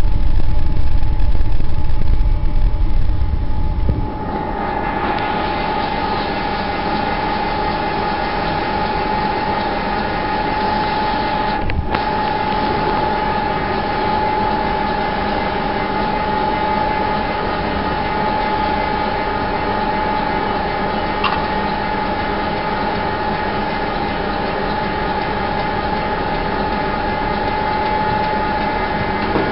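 A loud low rumble for the first four seconds, then a steady mechanical hum with a high, held whine that runs on unchanged.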